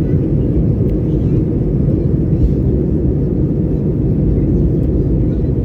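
Steady low rumble of airliner cabin noise: the jet's engines and airflow heard from a passenger seat, even and unbroken.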